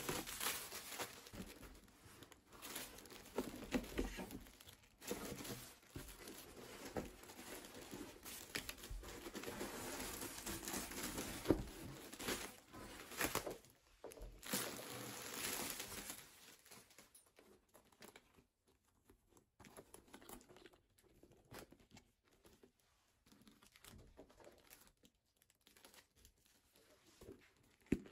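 Household handling noises: rustling and crinkling with scattered clicks, busy for about the first half, then only occasional light taps.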